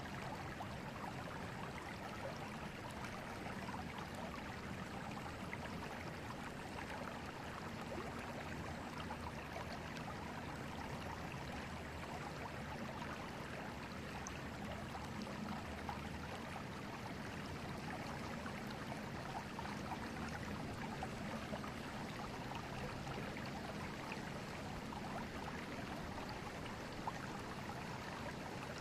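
Steady rush and babble of a river's water flowing over stones.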